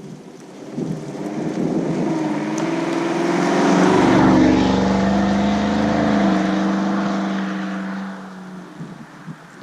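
Silverado 1500's 6.2 L V8 through a Corsa Sport cat-back exhaust, its deep exhaust note swelling to a peak about four seconds in and fading away a few seconds later.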